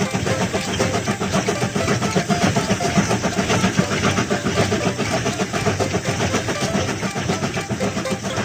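Cartoon coal-fired steam train running along the track: a steady, rapid chugging and rattling.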